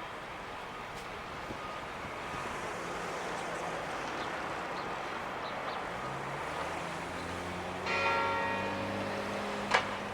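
Woodburn Hall's tower clock bells begin chiming the noon hour: low bell tones at several pitches come in about six seconds in, and the clearest stroke rings out about eight seconds in and hangs on. Two sharp clicks follow near the end.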